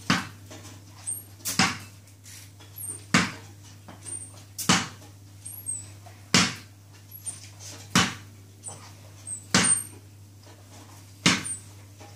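Cricket bat striking a ball hung on a cord, a sharp knock about every one and a half seconds, eight in all. Faint high squeaks come between the strikes.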